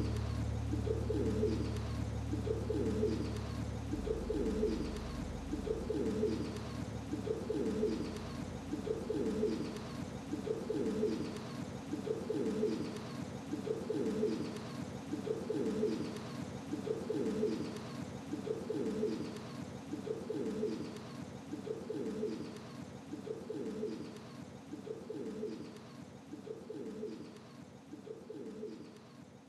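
Pigeons cooing, the same coo phrase repeating about every second and a bit, slowly fading out. A low steady drone underneath stops within the first few seconds.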